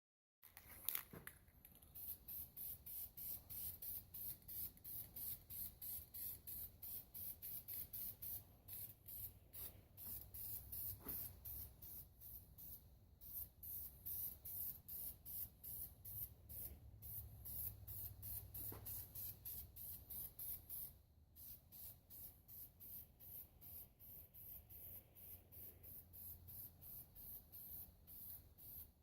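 Faint, quick, even strokes of scratchy hiss against the metal of the old safe's door, about three a second, briefly interrupted twice. This is hand work on the door, such as brushing or scrubbing.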